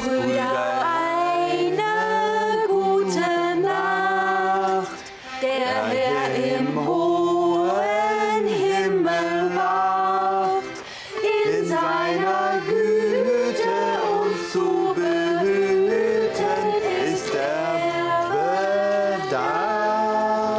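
A woman singing a song to a piano accordion, in long held notes with two brief pauses for breath.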